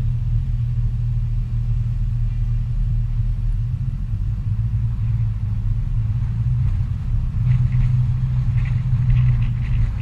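Steady low rumble of a car driving along a city road, engine and tyre noise heard from inside the cabin.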